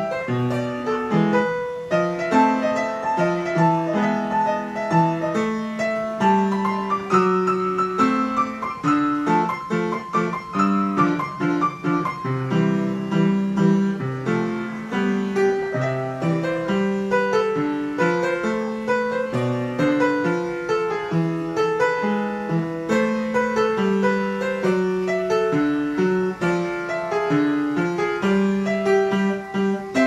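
An upright piano being played, a continuous piece with a melody over lower accompanying notes, with no pause.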